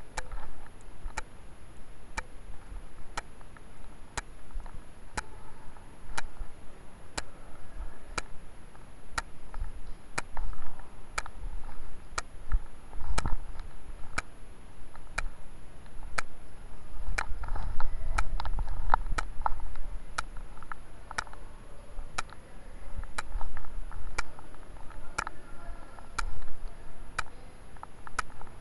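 Steady ticking, about one tick a second, over faint muffled background noise, with a low rumble a little past halfway.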